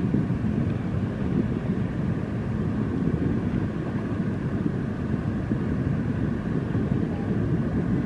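Steady low rumble of the Liebherr P996 backhoe dredger's machinery as its arm swings the bucket, with a faint steady whine above it.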